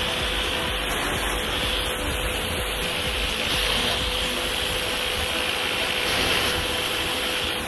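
Irrigation rain gun spraying a high-pressure water jet: a steady rushing hiss, with a faint steady tone underneath.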